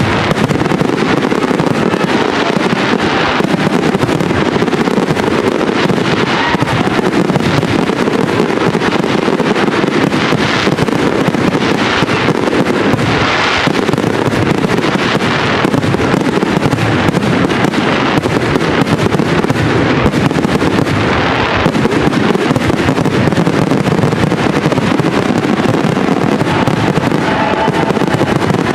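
Professional aerial fireworks display in a dense, continuous barrage: many shell bursts overlapping into a steady rumble of bangs and crackle with no pause. Louder spells of crackling rise out of it several times.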